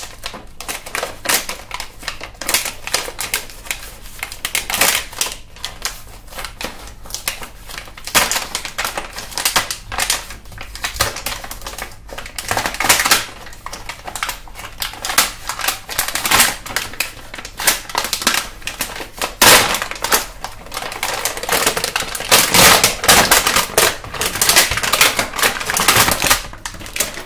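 Stiff clear plastic blister packaging crackling and clicking as hands pry it and tear it off a cardboard backing card, with many sharp crinkles that come thickest near the end.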